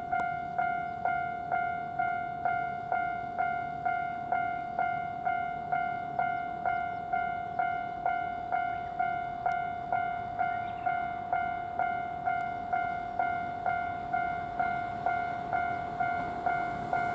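Japanese railway level-crossing warning bell ringing at a steady rate of about two dings a second, signalling an approaching train. Near the end, the rumble of the approaching train starts to rise under the bell.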